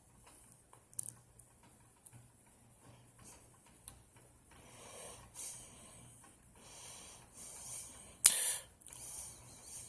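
Pages of a book being handled and leafed through: quiet at first, then soft paper swishes through the second half, with one sharp snap near the end as a page is flipped or the book is handled.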